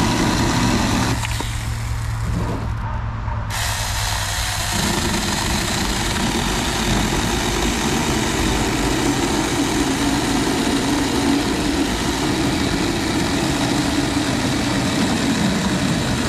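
Saker 4-inch cordless mini chainsaw running and cutting through a thin log, a steady motor whine with chain-on-wood noise and a short lull about a second in before the cut carries on.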